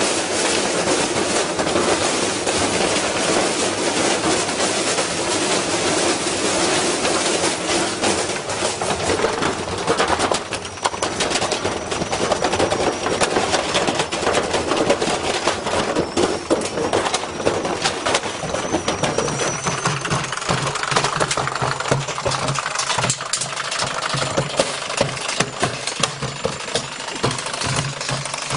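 Washing machine spinning with a heavy piece of iron in the drum, banging and rattling hard without a break as the unbalanced load pounds the machine apart. A steady low motor hum comes in under the banging about two-thirds of the way in.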